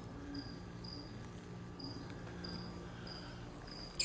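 Faint, short high-pitched chirps repeating about every half second over a steady low hum, with a short click near the end.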